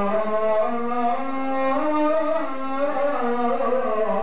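A man chanting in long, ornamented held notes that slide slowly from pitch to pitch: a melodic religious recitation.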